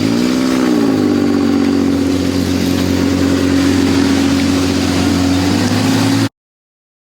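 ATV engine running under way, its pitch rising and falling once near the start and then holding steady. The sound cuts off suddenly about six seconds in.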